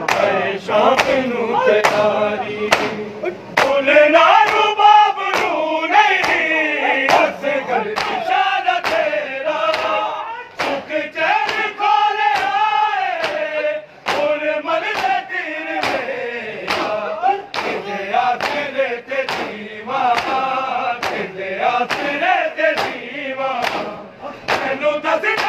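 A crowd of men chanting a Punjabi noha together, with rhythmic chest-beating (matam) striking steadily about one and a half times a second.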